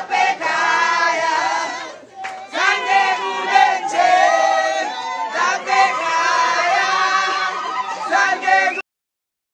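A group of voices singing together, choir-like, with wavering held notes; it cuts off abruptly near the end.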